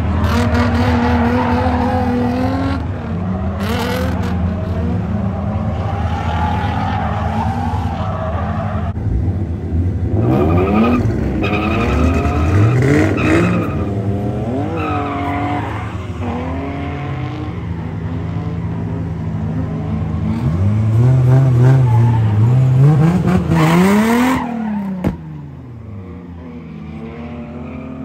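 Drift car engine revving hard, its pitch sweeping up and down with the throttle, with tyres squealing as the car slides. The sound falls away suddenly near the end.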